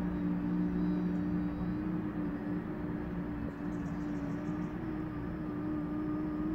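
Acoustic guitar playing softly under one long, steady hummed note that stops just at the end.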